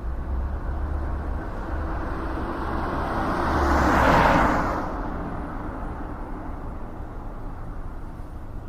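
Road traffic: a vehicle passes by, its noise rising to a peak about four seconds in and then fading, over a steady low rumble.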